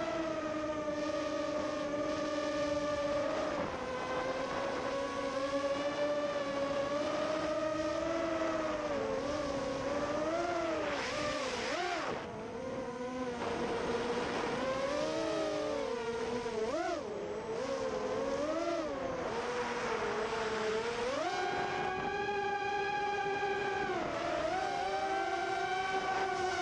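FPV quadcopter's electric motors whining as it flies. The pitch rises and falls with the throttle and steps up to a higher, steadier whine about 21 seconds in.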